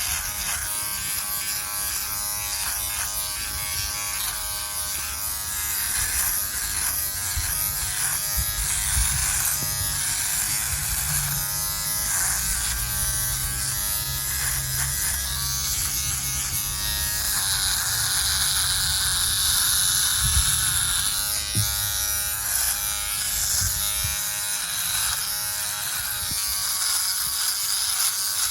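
Philips Norelco OneBlade electric shaver buzzing steadily as it shaves down a thick beard.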